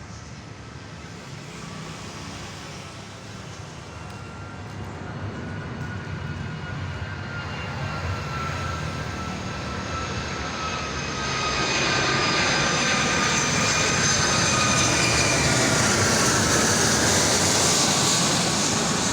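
Boeing 757-200 cargo jet on landing approach: the engines' whine and rush grow louder as it comes close, the whining tones sliding slowly down in pitch as it passes, loudest in the last third and easing off just at the end.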